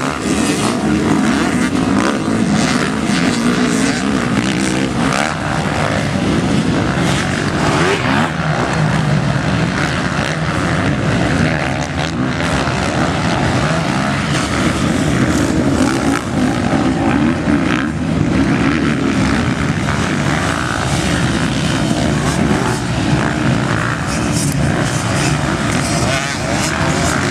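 Several motocross bikes racing over a dirt track, their engines revving up and down as they ride past one after another.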